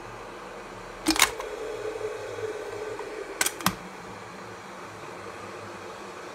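Sharp plastic clicks from a glass electric kettle: one about a second in and a quick double click about two and a half seconds later, with a low hum between them, over a steady hiss.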